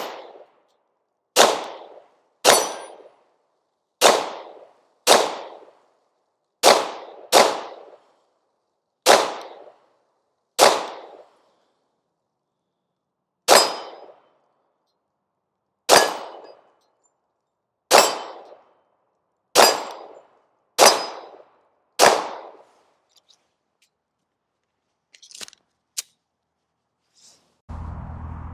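Bear Creek Arsenal BC-102 Grizzly 9mm pistol firing about fifteen single shots at an uneven pace, roughly one to three seconds apart, each shot followed by a short ringing tail. A couple of faint clicks follow the last shot.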